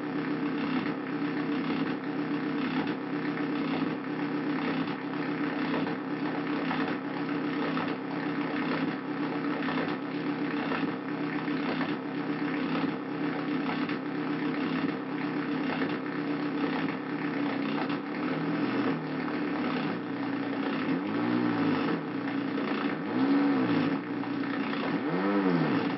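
Handmade Arduino noise/drone synthesizer playing a steady, buzzing multi-tone drone with a regular pulse. From about two-thirds of the way through, swooping sweeps rise and fall in pitch over it, several times.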